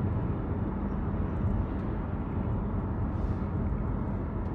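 Steady low rumble like vehicle road noise, with no speech.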